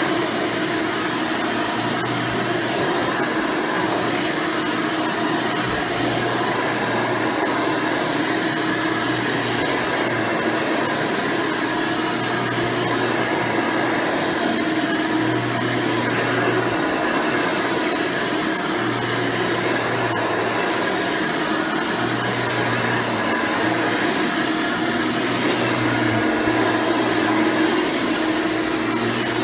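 Hoover Elite Supreme upright vacuum cleaner with a 7-amp motor and 20-blade fan, running steadily while vacuuming, with a low hum that comes and goes every few seconds.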